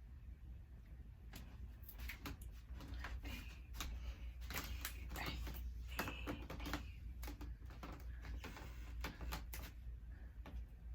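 Handling and rustling noises: an irregular run of soft clicks and brushes as a person moves and handles long hair close to the microphone.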